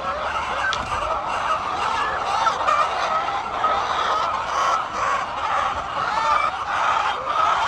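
A flock of chickens clucking and calling, many short overlapping calls in a continuous chatter.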